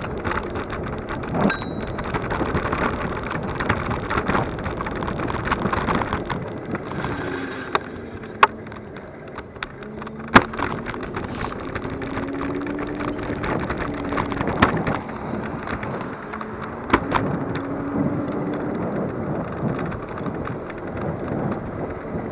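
Superpedestrian electric scooter riding along a tarmac path: steady rumble and rattle, with wind buffeting the microphone and several sharp knocks as it goes over bumps. A bell dings once about a second and a half in, and a faint whine rises and falls midway through.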